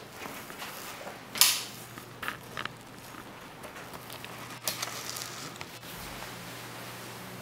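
A few scattered clicks and knocks, the loudest a short scrape about a second and a half in and a sharp click nearly five seconds in, over a steady low hum.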